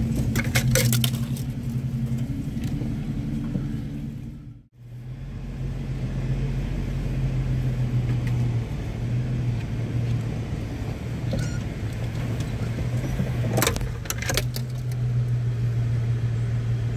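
Off-road vehicle's engine running with a steady low drone, heard inside the cab as it crawls along a rocky trail. Clusters of sharp rattles come about a second in and again near the end. The sound drops out briefly about a third of the way through.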